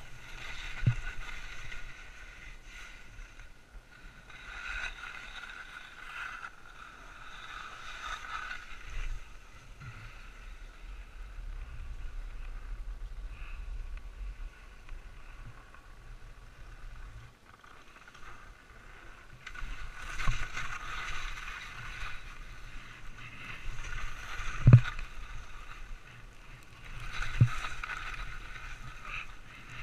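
Skis swishing and hissing through powder snow in a series of turns, over a low wind rumble on the microphone, with a few sharp thumps, the loudest a little before the end.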